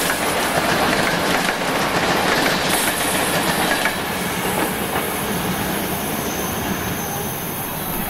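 Passenger coaches rolling past close by, their wheels clattering over rail joints. The noise drops about halfway through as the last coach goes by, then fades steadily as the train moves away.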